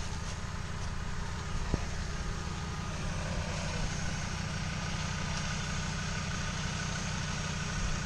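Land Rover Defender Td5's five-cylinder turbodiesel running steadily at low revs, with a single short knock about two seconds in.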